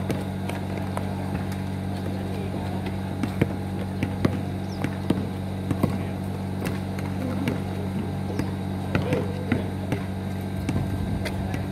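A basketball bouncing on a concrete court, with irregular sharp knocks of dribbles and footsteps and the odd shout from players, over a steady low hum.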